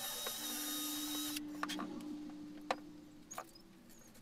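Cordless drill running for about a second and a half, followed by a few sharp clicks of tools being handled.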